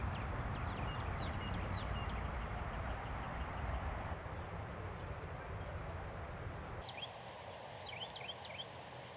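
Outdoor ambience: a steady rushing noise with a low rumble, and small birds chirping in short quick notes. About seven seconds in, the rumble drops away and a quick run of chirps stands out.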